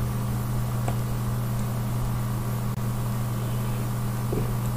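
Steady low hum over an even hiss, unchanging throughout.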